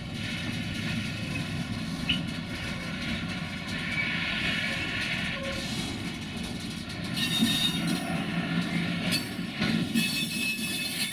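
Train running along the track: a steady rumble with rail noise, turning brighter and sharper in the second half, with a couple of sharp clicks near the end.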